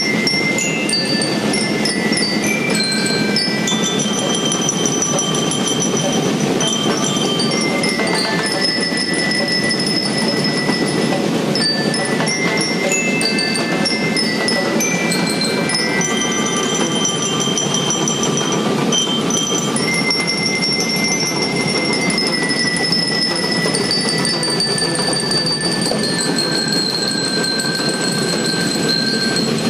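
School marching band of bell lyres and drums playing: the lyres' metal bars ring out a bright stepping melody over a steady, dense drum beat.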